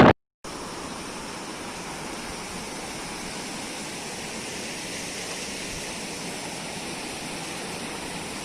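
Waterfall: a steady, even rush of falling water with no breaks. It starts abruptly just after a moment of silence at the very beginning.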